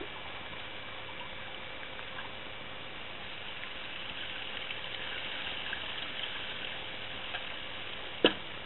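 Steady hiss of running water, with one sharp knock near the end.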